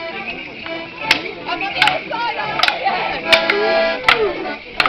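Border Morris dancers' wooden sticks clacking together in time, about six sharp clacks roughly one every three-quarters of a second, over the accompanying dance music.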